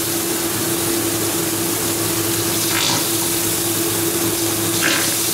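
Chopped garlic and chilli sizzling and simmering in oil and a little water in a wok, a steady bubbling hiss over a steady low hum. Oyster sauce squirts from a plastic squeeze bottle twice, briefly, about 3 and 5 seconds in.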